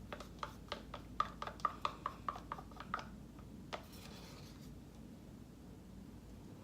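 Rapid light tapping on a cup of acrylic pouring paint, about five taps a second for some three seconds, knocking the last of the paint out. A single click follows about a second later.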